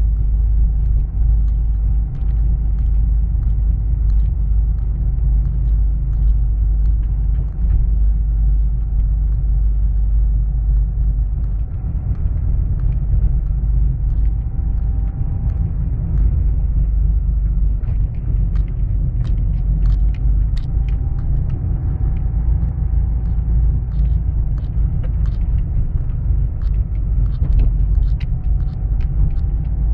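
A car driving slowly, heard from on board: a steady, heavy low rumble of engine and tyres rolling over a paving-stone street. Many short sharp clicks sound over it, more of them in the second half.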